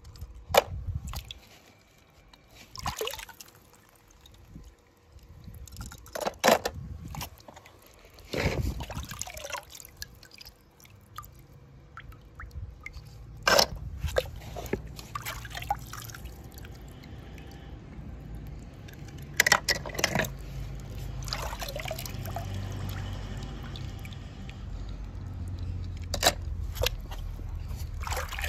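Toy cars splashing and being moved about in water, with drips and a few sharp knocks spread through. A low, steady rushing rumble builds from about halfway.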